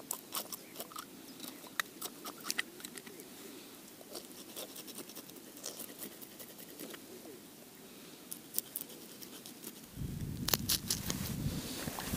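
A knife blade scraping the scales off a small freshwater fish, a series of short sharp scratchy ticks. A low steady rushing noise comes in about ten seconds in.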